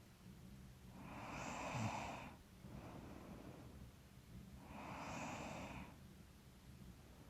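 Woman asleep, breathing heavily and noisily through her nose: two long breaths about four seconds apart, the first ending in a short low rumble of a snore. Her sleep-breathing and snoring is typical of a stuffy nose, as the uploader suspects.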